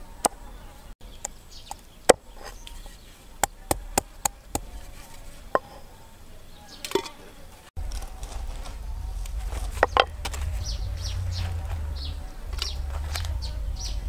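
Cleaver chopping on a round wooden chopping board: irregular sharp knocks, about ten strokes in the first six seconds. After a cut, a low rumble sets in with two more knocks near the middle.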